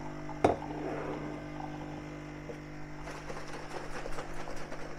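Nespresso-type capsule coffee machine humming steadily as it brews a lungo into a cup of ice. There is a sharp knock about half a second in, and a fine crackling from about three seconds in.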